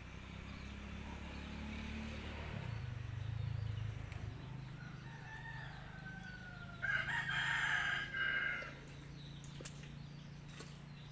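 A rooster crows once, loudest from about seven seconds in to near nine seconds, over a steady low hum.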